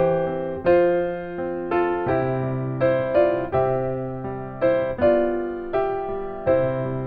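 Piano or electric keyboard playing slow, sustained chords, a new chord struck about once a second and left to ring and fade.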